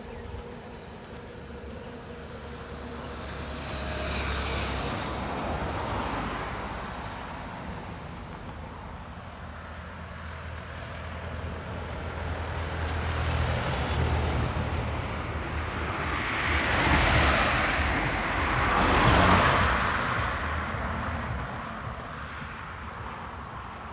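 Road vehicles passing close by: several go past one after another, each swelling and fading, with the loudest two in quick succession about two thirds of the way through.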